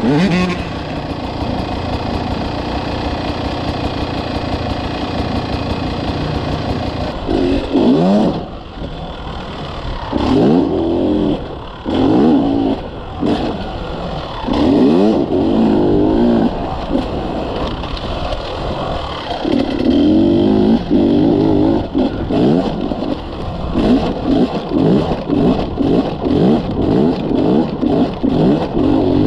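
Two-stroke engine of a Beta Xtrainer dirt bike being ridden hard, heard from on board. From about seven seconds in, the revs climb and drop again and again as the throttle is opened and shut.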